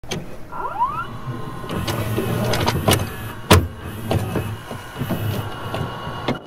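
Retro VHS-style logo sting made of sound effects. A motor-like whir glides up in pitch near the start, then comes a run of clicks and glitchy crackles, with one loud thump about three and a half seconds in.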